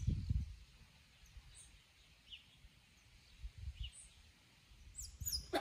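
Faint outdoor ambience with a bird giving short, high chirps every second or two. A low rumble at the start fades out within the first half-second.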